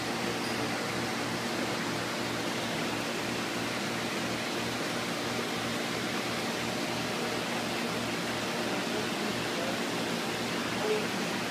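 Steady hiss and low hum of aquarium filtration equipment: water circulating and pumps running. A small brief tap near the end.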